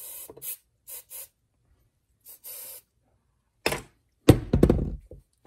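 Several short hissing bursts of silicone spray from an aerosol can, lubricating a fuel-injection transfer tube's O-rings, then a sharp knock and a louder clunk and clatter of handling near the end.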